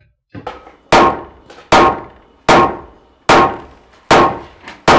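Steady hammering: six hard blows a little under a second apart, each ringing briefly, some with a light tap just before.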